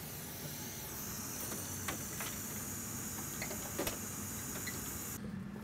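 Hot air rework station blowing a steady hiss at high airflow, cutting off suddenly about five seconds in, with a few faint ticks of tools.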